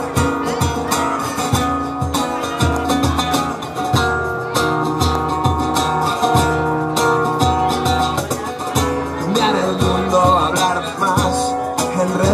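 Live acoustic band playing an instrumental passage: acoustic guitar strumming chords, with a cajón and cymbal keeping a steady beat.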